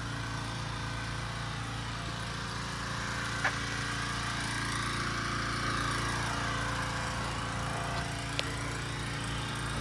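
The 2005 Ford F450 Super Duty's V10 gasoline engine idling steadily, swelling a little around the middle, with two faint clicks.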